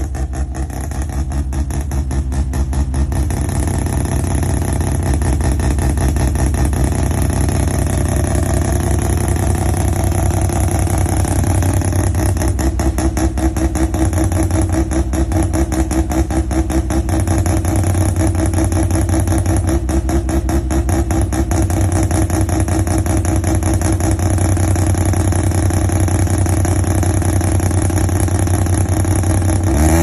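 Mazda RX-7's rotary engine running steadily at low revs with a rapid, even pulse; it grows louder over the first few seconds, then holds.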